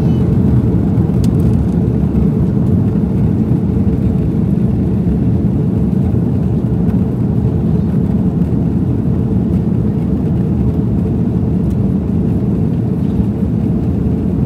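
Airbus A330-203 jet, its General Electric CF6-80E1 turbofans and airflow making a steady low rumble with no rise or fall.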